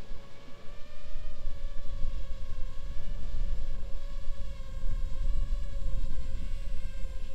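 Five-inch FPV quadcopter's motors and propellers whining at a fairly steady pitch that wavers slightly, over a low rumble, heard from the camera on the drone itself.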